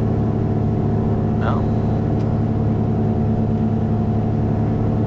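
The two geared, turbocharged Continental six-cylinder piston engines of a Cessna 421C running steadily at run-up power, heard inside the cabin, during a magneto check with each magneto isolated in turn.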